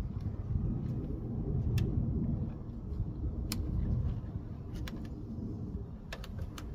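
Low steady outdoor rumble, with a few sharp clicks, several near the end, as nylon trimmer line is fed by hand down a car's sunroof drain tube to clear the clog.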